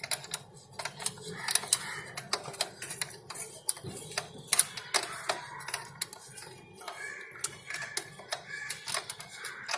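Irregular metallic clicks and clinks of a 12 mm spanner working a motorcycle chain adjuster nut as the drive chain is taken up.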